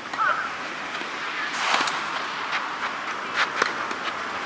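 Tennis rally: several sharp knocks of rackets striking the ball at uneven intervals, over rushing wind noise that sets in about a second and a half in. A short chirp sounds right at the start.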